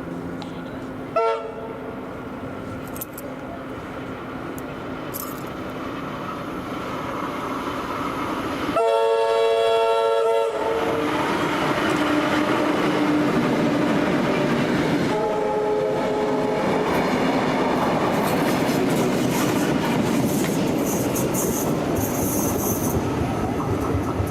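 Vintage Tait electric suburban train approaching and passing, its rumble and clickety-clack growing louder over the first several seconds. Its horn gives a short toot about a second in, a loud blast of nearly two seconds just before the halfway point, and a softer blast a few seconds later.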